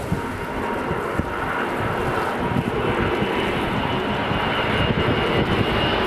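Beriev Be-200ChS amphibious water bomber flying low overhead, its twin turbofan engines running with a steady rush and a faint whine, growing a little louder as it comes closer.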